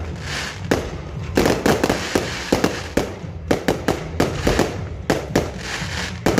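Aerial fireworks going off: a rapid, irregular string of sharp bangs and crackles as shells and rockets burst, coming thick and fast through the middle.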